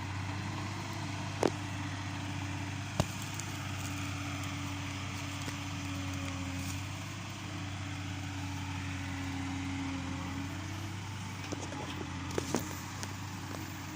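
Yanmar B37 compact excavator's diesel engine running steadily, its note shifting slightly as it works. A few sharp knocks cut through it: one about a second and a half in, another at about three seconds, and a quick pair near the end.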